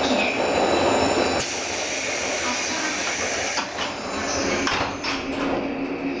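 Station-stop noise around a JR 185-series express train standing at the platform: voices in the background and a steady hiss for about two seconds, starting about a second and a half in.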